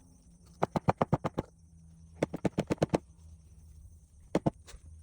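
An animal calling in quick runs of short, sharp notes: about eight notes in a rapid series, a second series of about eight, then two more near the end.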